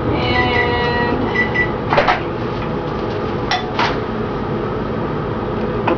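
A steady mechanical hum runs underneath. Short high beeps come in pairs during the first couple of seconds, and sharp kitchen knocks sound about two seconds in and twice more around three and a half seconds in.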